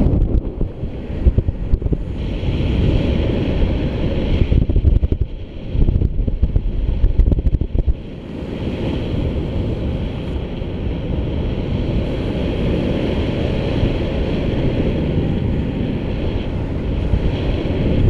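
Rushing wind buffeting the camera microphone on a paraglider in flight. It is gusty and uneven for the first half, then settles into a steadier rush.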